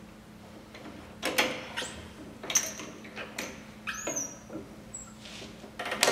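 Metal clicks and clanks of steel wire and clamp jaws being handled on a hand-operated wire butt welding machine, over a steady low hum, with a couple of short squeaks about four seconds in. Near the end comes the loudest burst of crackling as the welding current fires and the wire joint sparks.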